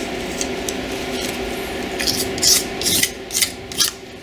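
Razor blade scraping chemically softened head-gasket residue off the deck of an aluminum LS cylinder head: faint strokes at first, then about five quick, sharper scrapes in the second half.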